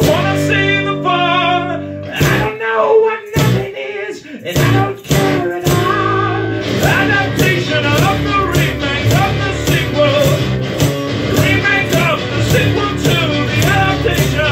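Nylon-string classical guitar played with a man singing. The music turns denser about seven seconds in, with a steady beat of about two strokes a second.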